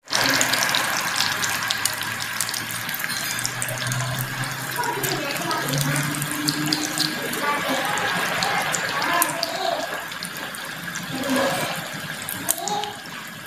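Beef samosas deep-frying in plenty of hot oil: a steady sizzle with a dense crackle of small pops.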